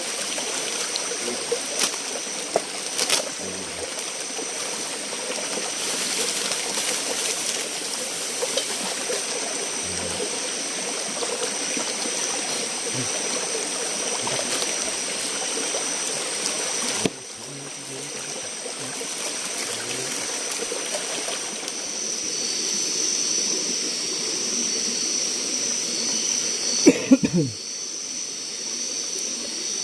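Steady rush of a small forest stream, with insects buzzing in high steady tones that grow stronger in the second half. The sound drops suddenly a little past halfway, and near the end a brief loud sound slides down in pitch.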